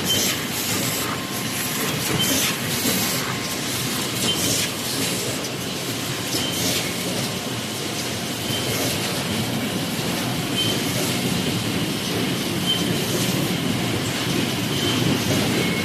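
Many paper plate forming machines running together, a steady clattering machine din full of small knocks, with a brief high squeak repeating about every two seconds as the presses cycle.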